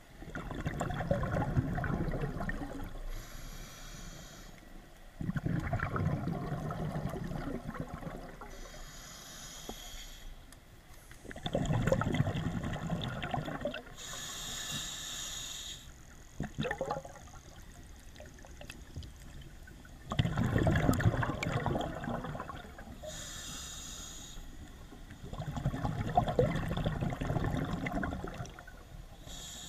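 Scuba diver breathing through a regulator underwater, heard through the camera's waterproof housing: five breaths, each a short high hiss on the inhale followed by two to three seconds of exhaled bubbles, repeating every five to six seconds.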